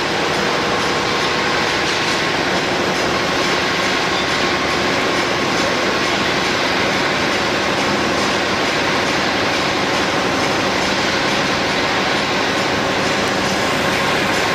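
Spiral paper tube winding machine running steadily at speed, paper plies feeding onto the mandrel: loud, even mechanical running noise with a faint steady hum.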